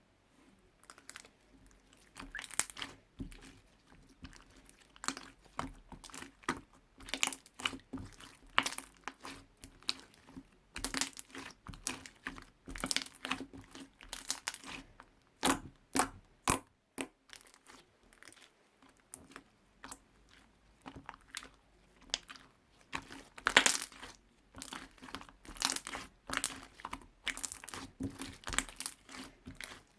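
Hands squishing and stretching stationery-store slime: a dense, irregular run of sticky clicks and crackles, some of them loud, over a faint steady hum.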